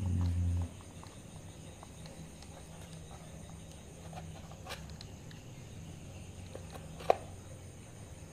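Hands handling and fitting together a scope camera mount's metal rods, plastic clamps and action-camera housing: faint scattered clicks and knocks, with one sharp click about seven seconds in. A short low rumble of handling noise in the first half-second.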